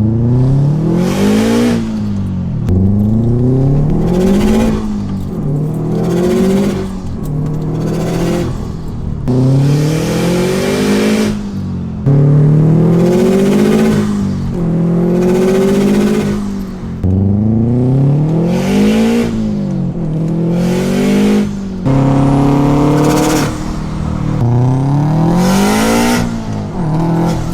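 Turbocharged flat-four engine of a 2006 Subaru WRX STi through a dozen or so short hard pulls, the revs rising and dropping each time. An external Tial 38 mm wastegate vents with a loud hissing rush near the top of each pull, heard both with and without wastegate flutter.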